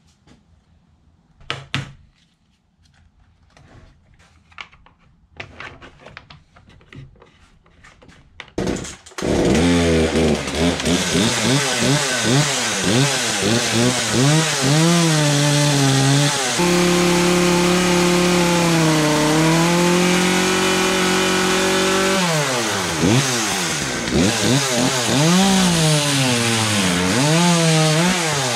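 Some clicks and handling noises, then about nine seconds in a Poulan two-stroke chainsaw starts and runs loudly, revving up and down repeatedly under the throttle, with a steadier, lower-pitched stretch in the middle.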